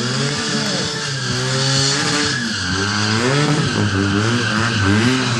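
Sport motorcycle engine revving hard, its pitch rising and falling over and over, as the rear tyre spins on the asphalt in a smoky burnout.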